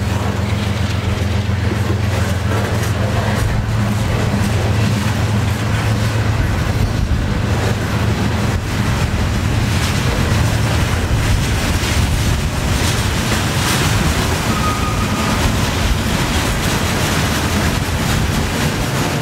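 Freight train of boxcars and tank cars rolling steadily past: a loud, continuous rumble and clatter of steel wheels on the rails. A brief thin squeal about three-quarters of the way through.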